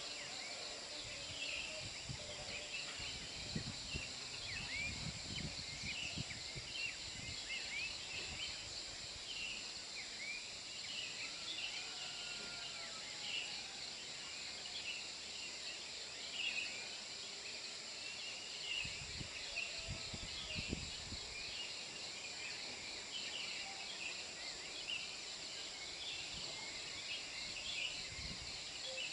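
Outdoor daytime ambience: many small birds chirping and a steady high-pitched insect drone, with a few brief low rumbles.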